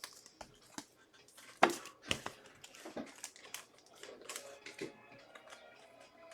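Trading cards being handled and sorted on a table: irregular taps and clicks of card stock, the loudest about a second and a half in.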